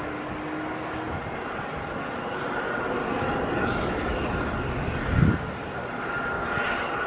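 Steady turbine whine and rumble of an Airbus A330-900 airliner on the ground, with a tug at its nose gear. A short low thump comes about five seconds in.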